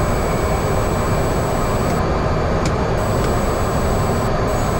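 Cessna 208 Caravan's Pratt & Whitney PT6A turboprop running steadily at low power while taxiing after landing, heard from inside the cockpit: an even noise with a faint high whine.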